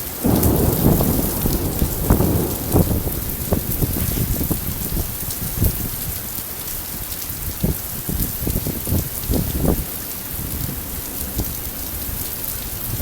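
Heavy rain falling in a summer thunderstorm: a steady hiss with many separate knocks close by. A low rumble of thunder comes in just after the start and eases off over the next few seconds.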